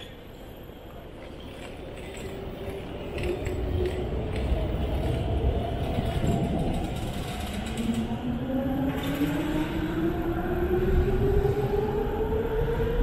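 Electric train accelerating, its motors giving a whine that rises steadily in pitch over several seconds as the rumble grows louder.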